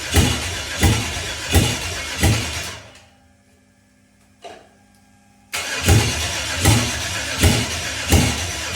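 5.3L V8 on an engine stand being cranked by its starter, turning over slowly with an even pulse and not catching, which points to a weak battery. The cranking stops about three seconds in, a single click follows, and it cranks again about two and a half seconds later.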